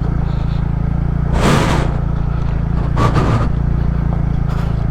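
Motorcycle engine running steadily at low speed on a rough trail, with two brief rushes of noise about a second and a half in and again about three seconds in.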